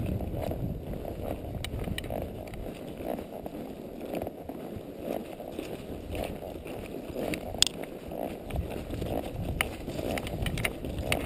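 Quarter horse walking along a trail, its hooves striking the ground in a steady uneven rhythm, with a sharp click about seven and a half seconds in.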